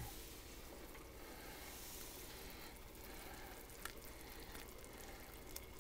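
Pot of chicken broth at a rolling boil, bubbling faintly and steadily, with a couple of faint plops as rolled dumplings are dropped in.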